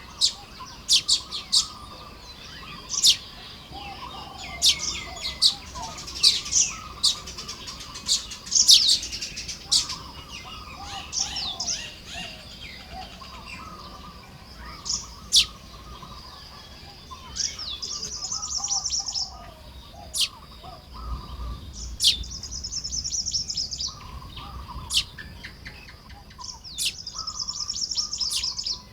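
Baya weavers calling at their nests while nest-building, with quick sharp chirps in the first half. Three times in the second half comes a long wheezing buzz, the end of a male's song.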